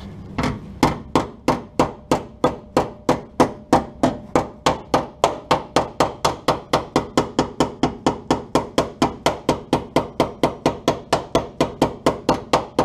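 MIG welder firing in a rhythmic string of sharp pops, about four a second, over the welder's low hum: the arc keeps striking and breaking as the wire stubs against a sill panel coated in non-conductive zinc-rich primer, during a plug-weld attempt that does not take.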